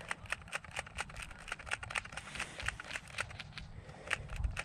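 Dry grass and brush rustling and crackling close to the microphone, many irregular crisp clicks, as someone moves slowly through it.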